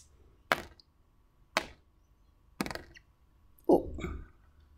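Plastic dice knocking down one at a time onto a paper chart: four short, sharp clacks about a second apart, the last one fuller.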